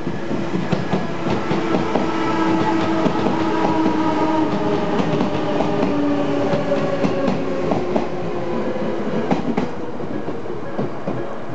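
Odakyu 1000-series electric train passing through a level crossing, its wheels clacking over the rail joints, with a steady whine that drops slightly in pitch partway through.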